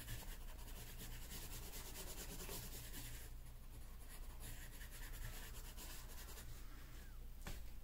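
Colored pencil scratching lightly on paper in quick repeated strokes, colouring with light pressure, over a low steady hum. A short tap near the end.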